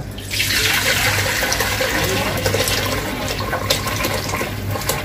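Nihari gravy with pieces of meat being poured from an aluminium pressure cooker into an aluminium pot: a steady splashing pour of liquid that starts just after the beginning.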